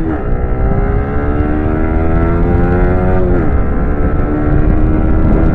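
Yamaha R15's 155cc single-cylinder engine accelerating hard up through the gears. The engine note climbs steadily, drops sharply with an upshift about three and a half seconds in, then rises again. A steady rush of wind and road noise runs underneath.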